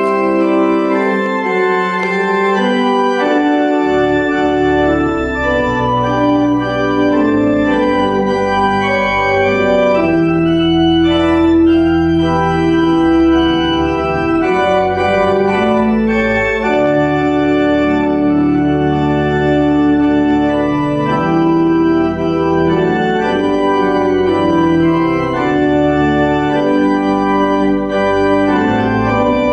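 Church organ playing the closing postlude: slow, sustained chords, with deep pedal bass notes coming in about four seconds in.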